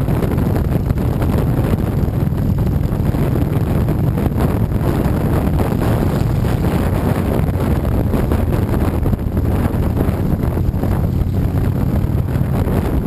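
Wind rushing over the microphone of a camera riding on a moving motorcycle, over the steady low rumble of the bike's engine at cruising speed.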